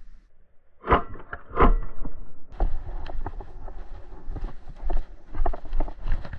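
Two loud pops about a second in, then a paintball player running over grass: quick, uneven footfalls with his gear rattling.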